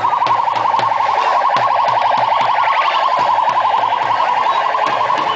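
Electronic car sirens and horns blaring without a break, a rapid warbling tone with now and then a siren sweep gliding down in pitch.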